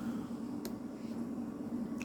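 Power wheelchair's electric motor humming steadily, with a single sharp click about two-thirds of a second in.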